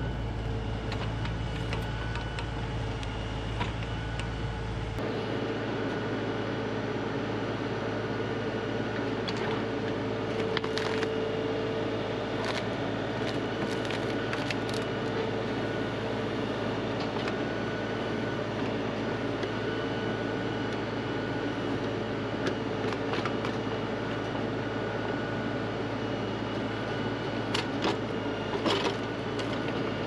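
LS compact tractor's diesel engine running steadily, driving the backhoe hydraulics as the bucket digs out a stump, with scattered knocks and clanks of the bucket striking soil and roots.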